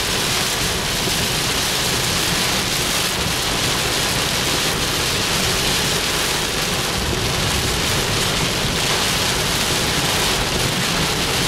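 Heavy rain pouring onto the windshield and roof of a moving car, heard from inside the cabin as a steady, even rush of noise.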